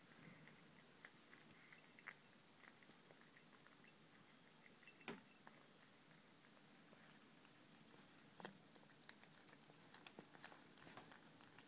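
A domestic cat eating wet tuna from a bowl: faint, irregular wet chewing clicks that come thicker in the last few seconds.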